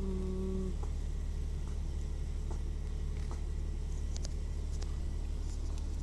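A steady low background hum, with a few faint scattered clicks and rustles of hands working loose soil and roots in a clay pot. A short hummed voice sounds at the very start.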